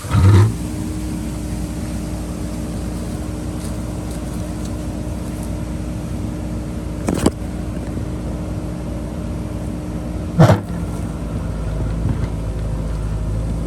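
JCB backhoe loader's diesel engine running steadily under working load, with three sharp knocks from the digging: one near the start, one about seven seconds in and one about ten seconds in.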